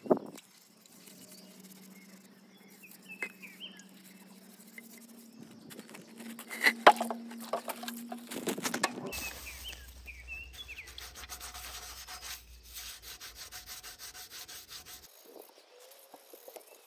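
Hands scrubbing and rubbing caked grime off the glazed inside of an old ceramic sink, in irregular scraping strokes that turn rapid and dense in the second half, with a few sharp knocks. Birds chirp briefly a couple of times.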